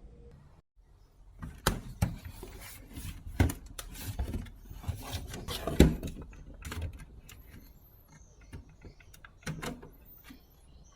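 Handling noises: a busy run of knocks, clicks and rubbing as something is moved about on a hard work surface. It thins to a few scattered taps in the second half.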